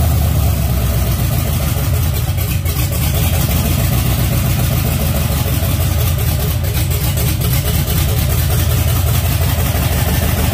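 GM LS V8 engine running at a steady idle just after its first start-up following the swap.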